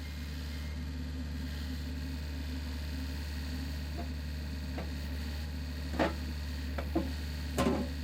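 John Deere 60G excavator's diesel engine running at a steady low hum, with a handful of sharp clicks and knocks in the second half.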